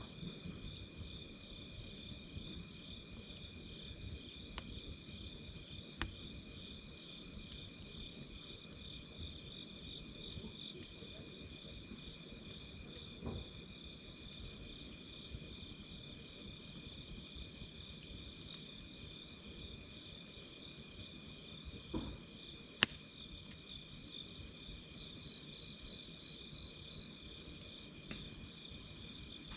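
Crickets chirring steadily in a fast pulsing trill, over the low hiss of a wood fire. A few sharp crackles and pops from the fire break through, the loudest about three quarters of the way in.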